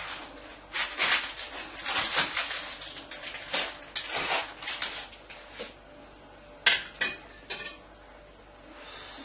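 Spatula scraping and clinking in a baking tray, lifting portions of baked onion-leek tart loose: a run of repeated scrapes, then a few sharp clinks about seven seconds in.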